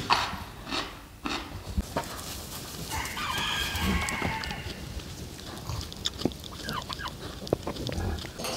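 Rooster crowing once, about three seconds in, with hens clucking now and then.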